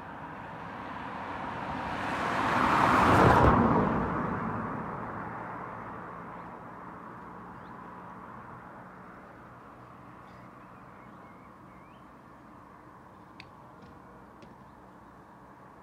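A car passing by, growing louder, loudest about three seconds in, then fading away. Faint bird chirps come later.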